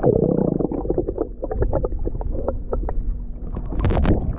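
Muffled underwater sound of swimmers treading water in a pool, heard through a submerged microphone: a low churning rumble with many bubbly clicks and pops, and a brief brighter burst near the end.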